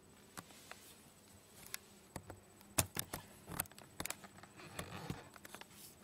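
A close series of irregular soft clicks and rustles, handling noise of the camera and the fleece dog bed being moved about. They grow busier after the first second, and the loudest comes about three seconds in.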